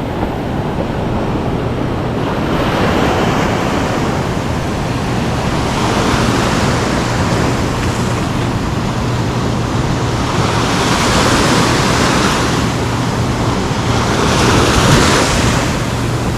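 Ocean surf breaking and washing up on the beach, swelling every few seconds with each wave, with wind buffeting the microphone.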